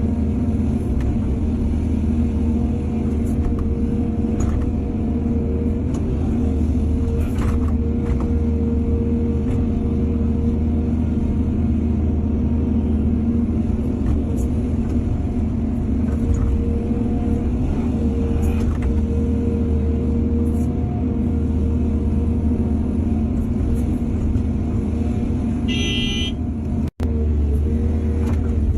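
Diesel engines of earthmoving machinery running steadily, with a short high-pitched tone near the end.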